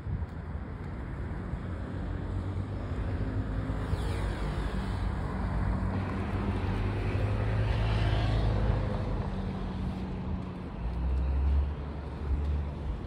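Road traffic: a car's engine and tyre noise building to a peak about eight seconds in, then easing off as it passes, over a steady low rumble.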